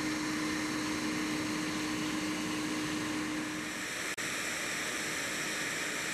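Shop vac motor running steadily, powering a bee vacuum box that sucks swarming honeybees through a hose. It makes an even whooshing hum, and a steady tone in it drops away about four seconds in.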